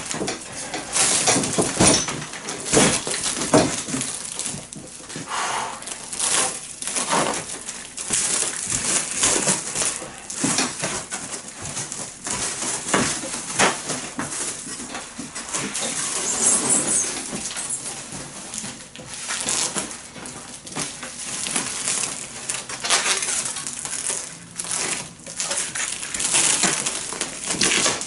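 Plastic stretch wrap film being pulled off a hand roll and wound around a cardboard box, with irregular crackling and rustling as the film unspools and drags over the cardboard.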